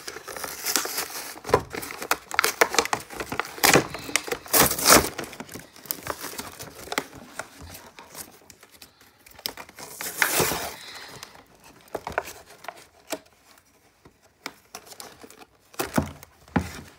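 Clear plastic packaging being crinkled and pulled at by hand, its tape tearing: irregular sharp crackles, busiest in the first half, with a longer tearing rasp about ten seconds in and only scattered crackles after.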